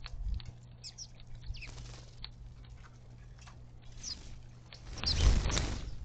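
House sparrows chirping in short, high, falling notes, and about five seconds in a loud rush of wings as the flock flushes off the feeder.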